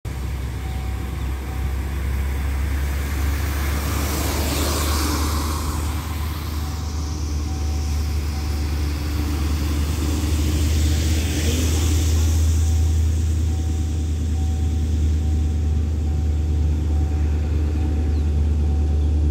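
Cars passing on a wet road, their tyres hissing: one goes by about four seconds in and another around eleven seconds, over a steady low rumble.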